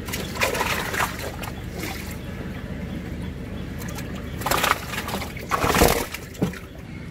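Live fish thrashing in shallow water, splashing in several short bursts, the loudest about six seconds in, over a steady low hum.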